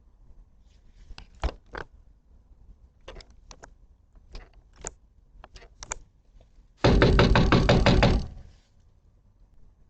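Someone knocking on a front door: a few scattered light taps, then about seven seconds in a loud, rapid flurry of knocks lasting about a second and a half.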